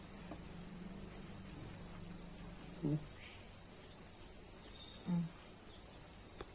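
Steady high-pitched chirring of insects, with a small bird chirping a quick run of short notes in the middle. A couple of brief soft low sounds are heard about three and five seconds in.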